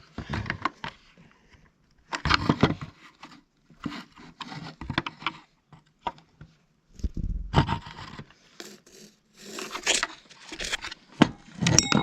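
A tool scraping and prying at a bell module's cover in repeated bursts with short pauses between them, the cover stuck fast and hard to get off.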